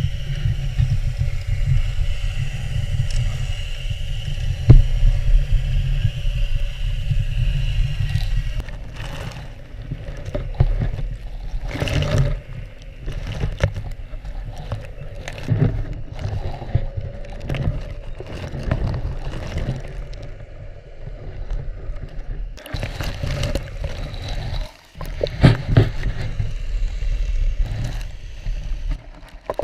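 Underwater sound in a lagoon canal, heard through a submerged camera: a steady low rumble with a high steady hum over the first eight seconds or so, then irregular knocks, clicks and scrapes.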